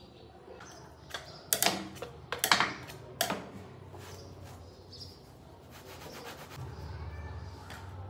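Sharp clicks and knocks of small plastic kitchen containers and lids being handled, a few in quick succession in the first half. After them comes a softer stretch of cloth rubbing as the containers are wiped.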